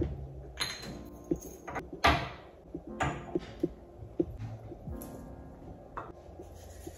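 Scattered light knocks and clatters with a few short rushing noises, over faint background music.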